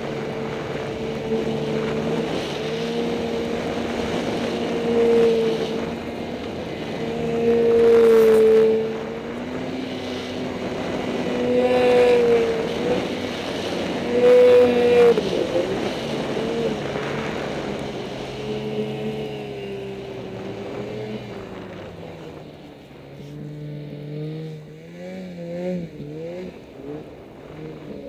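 Snowmobile engine running hard through deep powder, swelling in pitch and loudness several times with the throttle. About three-quarters of the way through it eases off to a quieter, lower running whose pitch wavers up and down as the sled slows.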